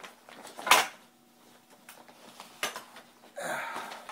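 Plastic and metal parts of a baby rocker seat clacking as it is handled onto its frame: one sharp knock under a second in, a lighter one around the middle, then fabric rustling near the end.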